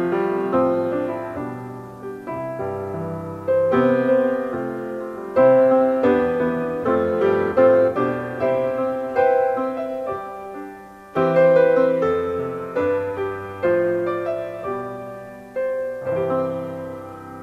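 Solo piano playing a slow, gentle piece: chords and melody notes struck and left to ring and fade, with the last chord dying away near the end.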